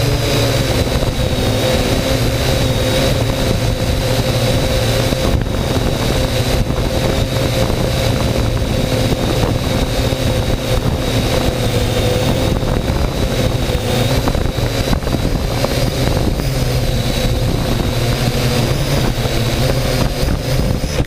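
Drone motors and propellers running steadily in flight, heard close up from a camera hanging beneath the drone: a continuous buzz with a high whine whose pitch wavers only slightly.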